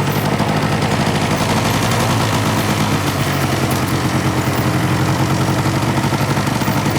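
A vehicle's engine running steadily, with a rapid, even pulsing.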